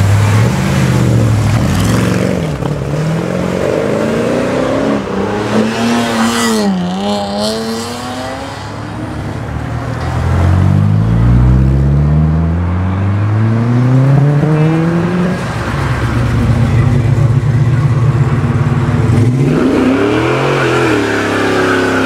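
Modified cars driving off one after another, engines revving and accelerating. The engine pitch swoops down and back up about six seconds in, climbs steadily in a long pull from about ten seconds, and revs again near the end.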